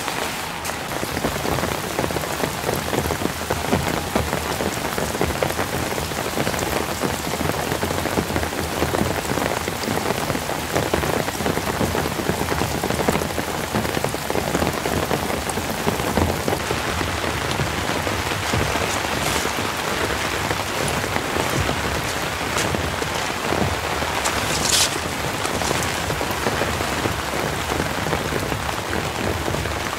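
Steady rain falling, many close drops ticking on wet tent fabric and the leaves around it.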